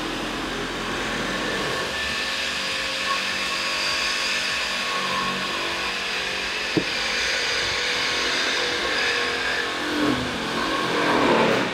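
A motor running steadily with a hiss over it, with a single sharp click about seven seconds in; the running stops suddenly at the end.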